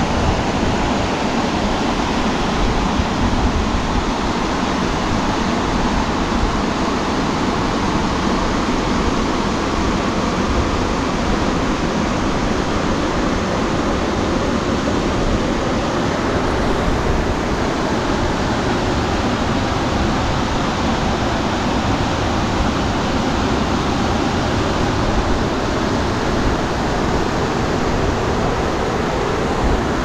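A steady rush of river water spilling over a concrete weir.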